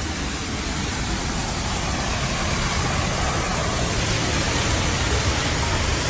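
Steady rushing roar of the Düden Waterfall, heard from the cave behind the falls, growing a little louder toward the end.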